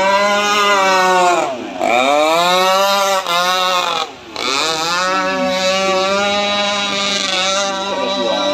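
Engines of radio-controlled racing boats running at high revs, their pitch dipping sharply and climbing back up about three times.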